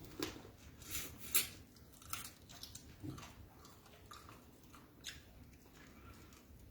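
Close-up mouth sounds of a person eating beans and fried plantain: irregular wet chewing and biting clicks, a few a second, the loudest about a second and a half in.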